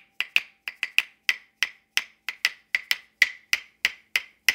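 A pair of claves, hardwood sticks, struck together in a steady rhythm of about four clicks a second. Each click is sharp and rings briefly at a clear high pitch.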